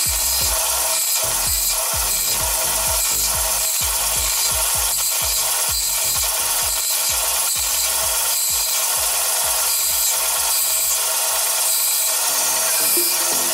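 Proxxon benchtop band saw running steadily while a thin painted wooden strip is fed through the blade and cut into short pieces, one quick cut after another.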